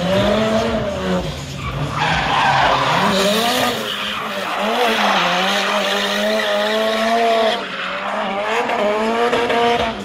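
Drift car engine held at high revs, its pitch rising and falling with the throttle, over the squeal of spinning tyres sliding through a drift. The tyre noise eases off about three-quarters of the way through.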